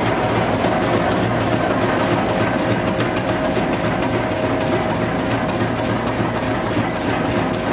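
Cassava brush washing and peeling machine running: a steady motor and roller hum with a constant rush of water spray, and many small knocks as the cassava roots tumble against the rotating brush rollers.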